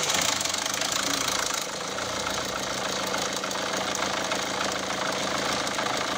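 Peugeot-Citroën 1.6 HDi four-cylinder diesel engine idling steadily, cold, just after starting. The chain between its camshafts and that chain's tensioner have been replaced, and the metallic rattle they caused is gone.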